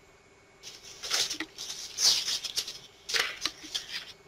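Irregular rustling and clattering noise in a run of short bursts, starting about a second in and stopping just before the end.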